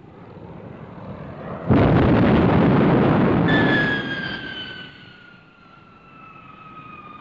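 A sudden loud blast lasting about two seconds, followed by the whine of a Gloster Meteor's jet engines falling slowly in pitch as the fighter passes.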